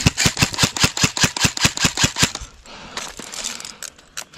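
Airsoft rifle firing a rapid string of about fifteen shots, six or seven a second, for about two and a half seconds, followed by a few fainter clicks.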